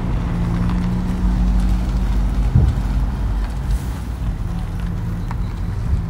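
Wind buffeting the camera's microphone: a loud, low, uneven rumble with no let-up.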